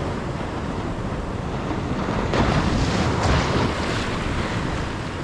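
Ocean surf washing in, with one wave swelling louder about two and a half seconds in, and wind rumbling on the microphone.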